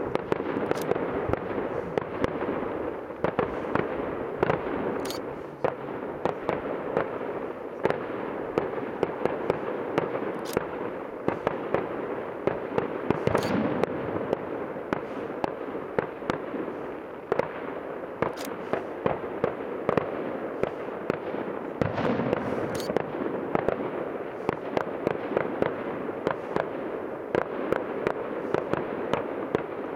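Professional fireworks display: a continuous dense crackling and popping of many small bursts, with sharper bangs every few seconds.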